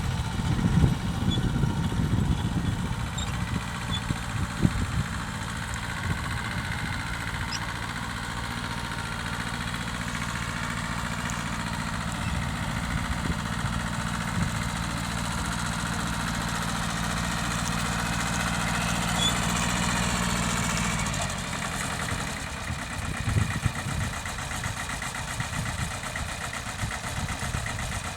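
Mitsubishi tractor engine running through the ploughing work. It runs steadily through the middle, with rougher, uneven stretches near the start and about three quarters of the way through.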